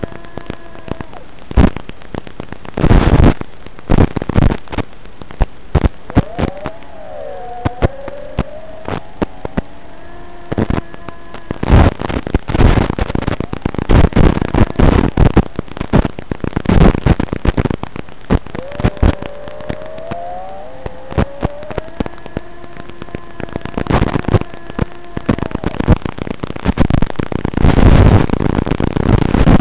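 Onboard audio from an FPV model aircraft sent over an analog video link: the motor's steady hum, which slides up and down in pitch twice as the throttle changes, buried under loud crackling radio static. The static comes in bursts and is thickest near the end, as the video signal breaks up.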